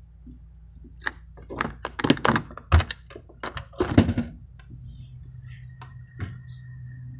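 A quick run of knocks and clunks, the loudest about two, three and four seconds in, then a steady low hum with one more click near the end.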